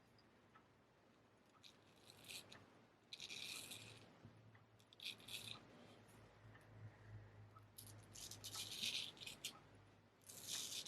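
Straight razor strokes scraping through lathered stubble: about five short, crackly strokes, each lasting half a second to a second, with pauses between them.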